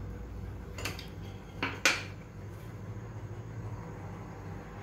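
Small glass bowls clinking against a stainless steel pan as chopped ingredients are tipped in: three short clinks, the loudest about two seconds in.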